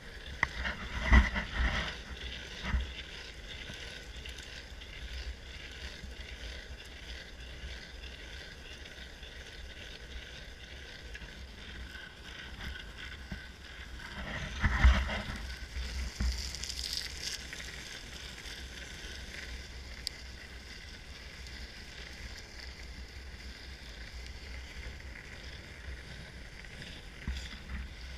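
Longboard's urethane wheels rolling steadily over rough asphalt, a constant road hiss, with a few louder knocks from bumps, the biggest about a second in and about halfway through.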